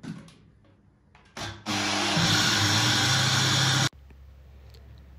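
Electric countertop blender grinding soaked rice in water: after a couple of clicks from the jar and lid being handled, the motor starts about a third of the way in, rises in pitch as it speeds up, runs loudly for about two seconds, then cuts off suddenly.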